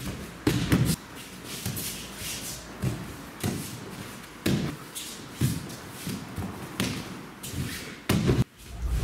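Bare feet thumping and shuffling on dojo mats and keikogi and hakama swishing as two aikido practitioners move through a throw, with a heavy thud about eight seconds in as the thrown partner lands on the mat.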